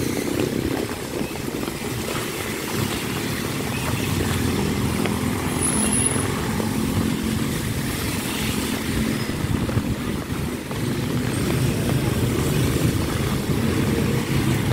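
Heavy rain with road traffic: cars and motorcycles passing on the flooded, wet road, a steady mix of rumble and hiss that never drops away.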